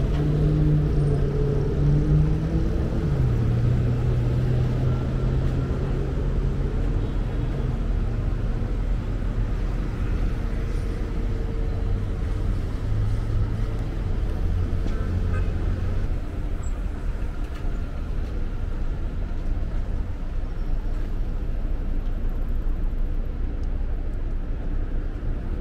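Street traffic: cars running past in a steady low rumble, with one engine's hum dropping in pitch about three seconds in.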